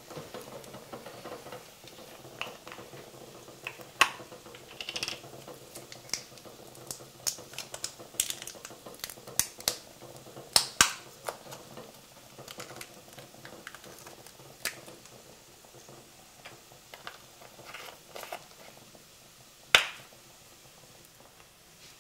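Irregular small clicks and taps of a syrup bottle and its cap and kitchen utensils being handled beside a pan on the stove, with sharper clicks about four, ten and twenty seconds in, over a faint low hum.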